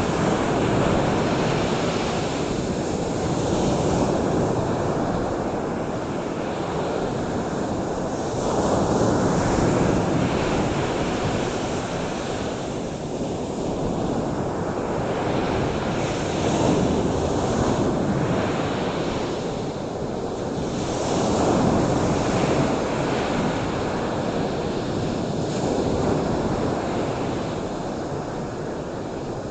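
Ocean surf washing ashore: a continuous rushing noise that swells and eases every few seconds as waves break.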